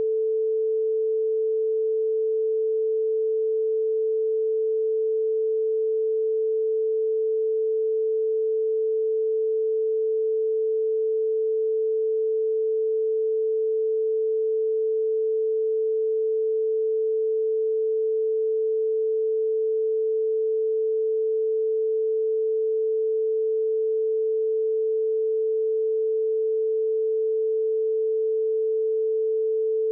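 A single steady electronic tone, mid-pitched and unchanging, laid over a censored stretch of the recording in place of the speech.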